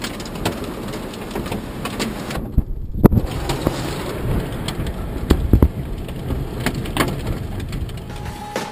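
Heavy rain and hail hitting a Honda Odyssey minivan's windshield and body as it drives through a storm, a dense hiss with many sharp irregular hits over road noise. It cuts out briefly about two and a half seconds in, and the loudest hits come just after.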